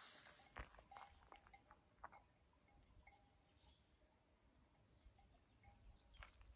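Near silence with faint birdsong: a short run of high, falling notes about three seconds in, repeated near the end.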